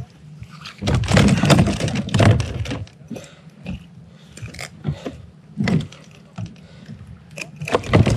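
Handling sounds on a plastic fishing kayak: a freshly landed salmon thrashing against the deck and metal treble hooks and lure clicking and jangling as they are worked free by hand. There is a longer burst of thrashing and clatter about a second in, then scattered knocks and clicks.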